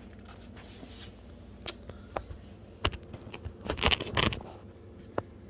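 Hands working a tight plastic electrical connector loose from an oil pressure sensor: scattered sharp clicks, with a louder spell of rattling and scraping a little after the middle.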